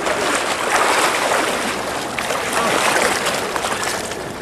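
Water splashing and sloshing as a large hooked fish thrashes in shallow river water while it is dragged toward shore, over a steady rush of river water.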